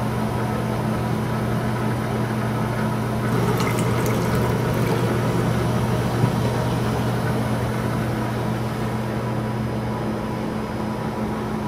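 Liquid formaldehyde pouring from a plastic jug into a glass graduated cylinder, a rushing splash from about three seconds in that fades out around eight or nine seconds, over a steady low electrical hum.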